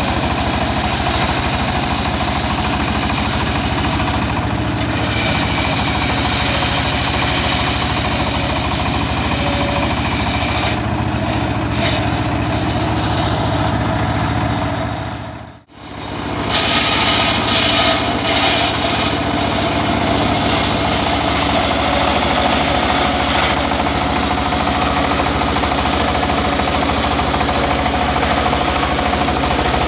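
Engine-driven homemade circular saw bench running steadily while a sengon wood plank is fed lengthwise through the blade. The sound drops out briefly about halfway through, then resumes.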